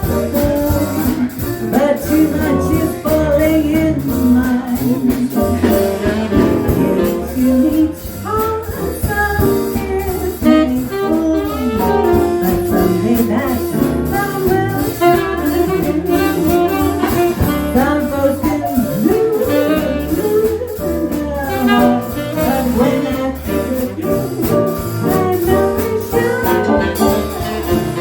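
Small swing jazz band playing live: tenor saxophone and a female vocal over piano, double bass and drums, with cymbal strokes keeping a steady swing beat.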